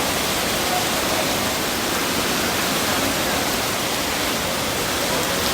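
Heavy rain falling on a street: a steady, even hiss with no thunder clap.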